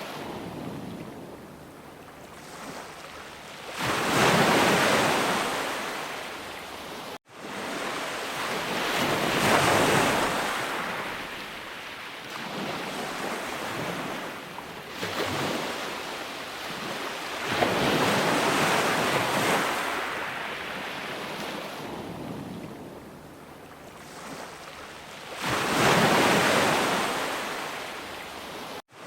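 Sea waves breaking and washing in, swelling and ebbing every few seconds, with the biggest surges about four, nine, eighteen and twenty-six seconds in. The sound cuts out for an instant twice.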